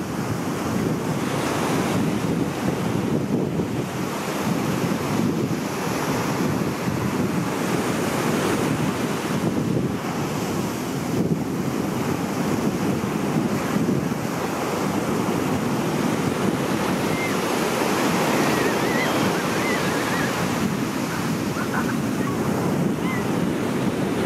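Ocean surf breaking and washing over a rocky reef, a steady rushing, with wind buffeting the microphone. A few faint, short bird calls come through in the second half.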